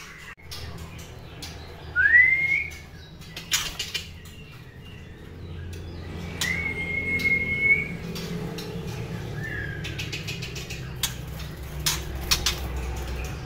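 Young white-rumped shamas in a cage giving a few single clear whistled notes: a short rising one, then a longer held one, then a short falling one. Scattered clicks and wing flutters come from the birds hopping between perch and cage bars, over a low steady hum.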